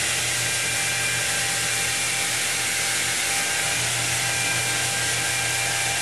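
Handheld electric wet polisher running steadily, its water-fed abrasive pad grinding across a wet stone wall: a constant motor whine over a broad scrubbing hiss.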